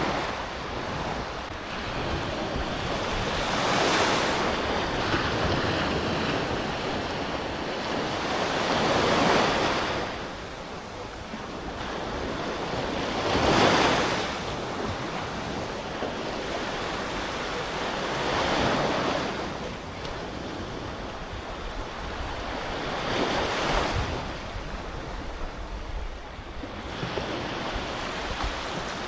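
Sea waves breaking in slow surges about every five seconds, each a swelling and fading rush of surf, over steady wind noise on the microphone.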